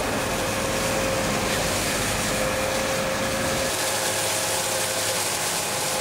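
Tractor-mounted flail hedge cutter running, its head cutting through a hedge: a steady whine over an even rushing noise and the tractor's engine.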